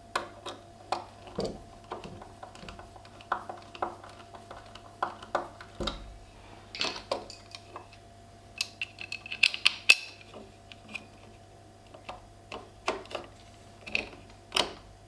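Irregular clicks, taps and clinks of hand tools and small metal hardware being handled and set down on a wooden workbench, with a quick run of brighter clinks about two-thirds of the way through.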